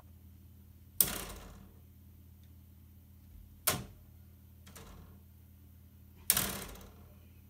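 Three loud, sharp taps, about a second, three and a half and six seconds in, each with a short fading tail, and a fainter tap between the last two, over a steady low hum.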